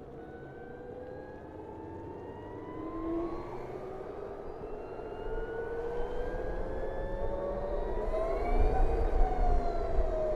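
BMW CE 04 electric scooter's drive motor whining, its pitch rising steadily as the scooter gathers speed, topping out near the end and starting to fall as it eases off. Wind rumble builds as the speed rises.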